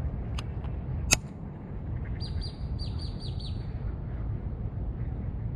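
A small bird calling a quick run of about six short, high, falling chirps, with two sharp clicks shortly before, the second louder, over a steady low rumble.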